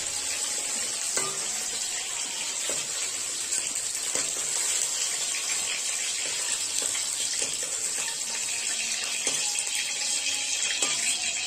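Hot oil sizzling steadily in a kadhai after frying okra: an even hiss with many small crackles.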